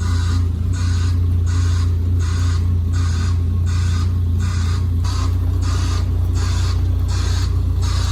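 A heavy machine's engine running steadily with a low drone, over a rhythmic scraping a little over twice a second.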